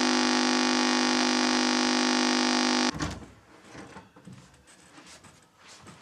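Clock radio's alarm buzzer sounding a loud, steady, harsh buzz that cuts off with a click about three seconds in, followed by faint rustling and soft knocks.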